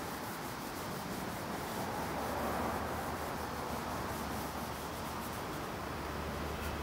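Cloth rubbing back and forth over a wooden bed rail in repeated strokes, wiping off excess touch-up filler over a glued crack repair.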